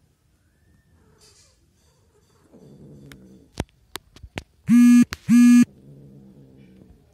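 Cats mating: a low, rumbling purr-like growl, a few sharp clicks, then two very loud, short, steady-pitched cries about half a second apart, after which the low rumble returns.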